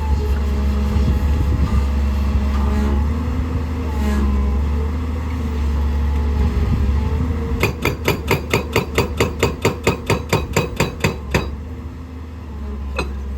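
Excavator diesel engine running steadily, then, about two-thirds of the way in, a hydraulic rock breaker hammering rock in a fast even run of about eight blows a second for some four seconds. It stops, then starts hammering again briefly near the end.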